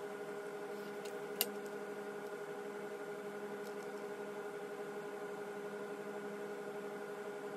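A steady hum made of several held tones that do not change, with a single sharp click about one and a half seconds in.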